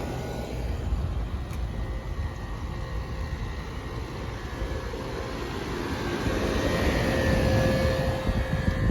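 Steady low rumble of a vehicle, its engine and road noise, growing louder about six to eight seconds in, with a faint steady hum.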